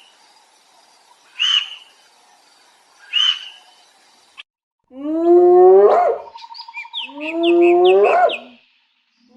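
A cat meows twice, short and high. After a cut, a different, larger animal gives two long calls, each rising in pitch.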